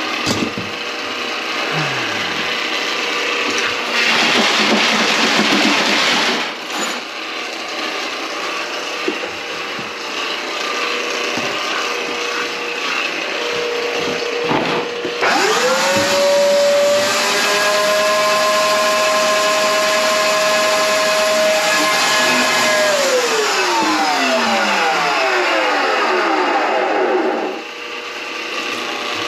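Power drain auger working a grease-clogged kitchen sink drain line, its cable rattling and clattering. About halfway through, the motor spins up to a steady high whine, then shuts off and winds down.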